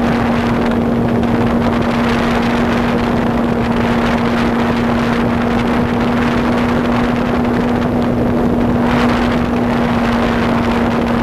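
Cessna light aircraft's piston engine and propeller in flight, a steady drone held at one pitch, under heavy wind rush on the microphone.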